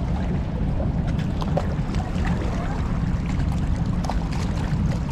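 Steady low rush of river water churning below a dam, with a few faint clicks.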